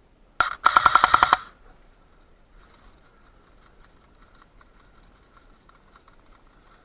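Airsoft electric gun firing a short full-auto burst of about a second, rapid and evenly spaced, followed by faint scattered ticks.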